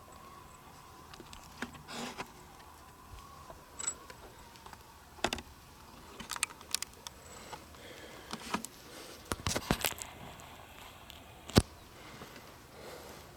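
Scattered small clicks and rustles of handled gear, with one sharp, loud snap near the end.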